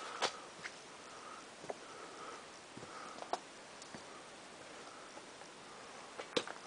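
Footsteps and handling noise on rubble and dry brush: scattered sharp clicks and crunches, the loudest just after the start, a little past the midpoint and near the end, over a faint steady background.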